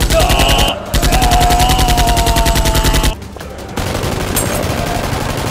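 Automatic gunfire sound effect: two rapid bursts at about a dozen shots a second, the second lasting about two seconds, with a held, slightly falling tone over it. After about three seconds the firing stops and a quieter steady noise follows.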